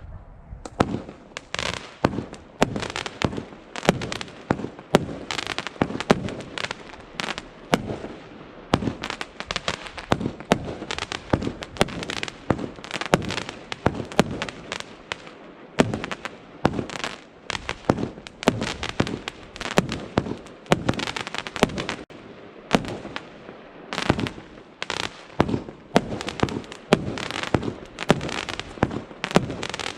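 Argento 'Kanji' fan-shaped firework battery (cake) firing: a rapid, unbroken run of sharp shots and bangs, several a second.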